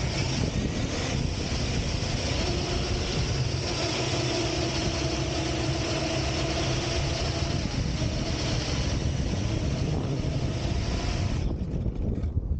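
Large radio-controlled monster truck running across desert sand, its motor noise mixed with a rushing hiss of wind and sand past the camera riding with it. The rushing noise drops away near the end.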